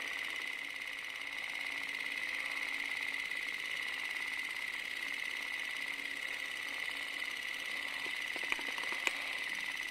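Film projector running: a steady mechanical whir and hiss with a high whine, and two sharp clicks near the end.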